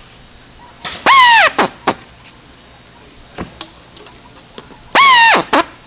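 Cordless drill driving hinge screws in two short runs about four seconds apart. Each run is a loud, steady whine that drops in pitch as the trigger is let go, followed by a quick second blip.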